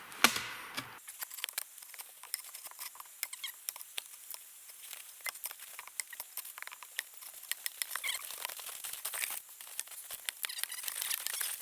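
A single sharp knock, then a dense, irregular run of small clicks and crackles.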